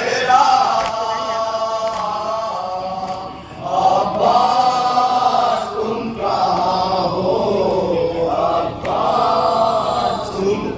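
Men chanting a noha, a Shia Muharram lament, together in sung phrases a few seconds long with brief breaks between them.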